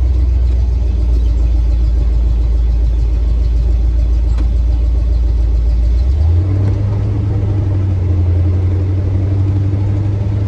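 Classic Ford pickup truck on the move, heard from inside the cab: a steady low engine and road rumble that steps up in pitch about six seconds in as the engine picks up speed.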